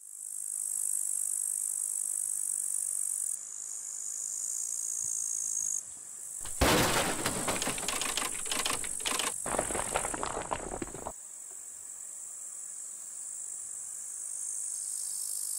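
Meadow insects chirring in a steady, high, continuous buzz. A short, louder burst of intro music plays over it from about six to eleven seconds in.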